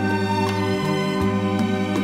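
Instrumental opening of a love song, with held chords and notes struck about twice a second.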